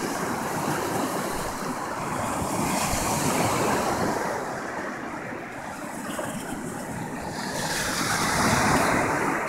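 Ocean surf washing up the beach, a steady rushing that swells about three seconds in and again near the end.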